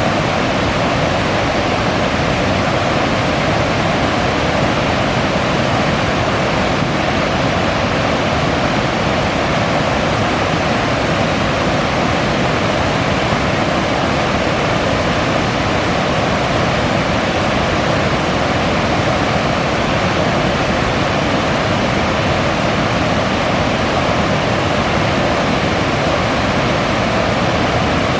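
River waterfall: water rushing steadily over the falls in an even, unbroken roar.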